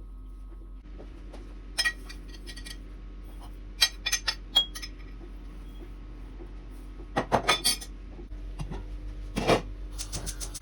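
Kitchen utensils clinking against cookware: scattered sharp clinks, several in quick runs about four and seven seconds in.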